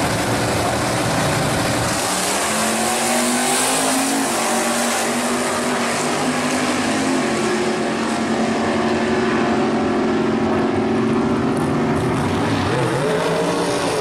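Two GM G-body drag cars launching from the start line and accelerating away down the strip. Their engines climb in pitch, drop back at a gear change and climb again as they run away.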